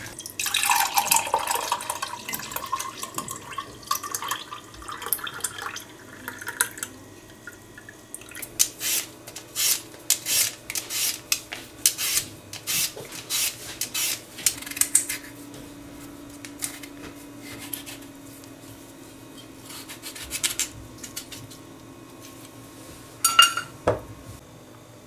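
A grapefruit half twisted and squeezed on a plastic hand juicer, juice splashing into the jug, for the first several seconds. Then a vegetable peeler scraping skin off a potato in quick strokes, about two a second, followed by a quieter stretch and one sharp knock near the end.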